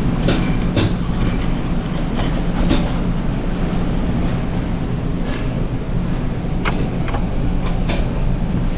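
Steady low drone of the ferry's engines carried through the ship, with scattered light clinks and clatter of dishes and utensils from the cafeteria counter.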